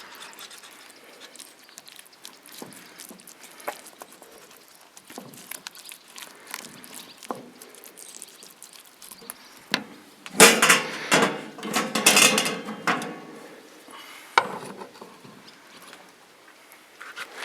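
Scattered clinks and knocks of barbecue utensils and grill being handled, with a louder stretch of clattering about ten seconds in that lasts two or three seconds.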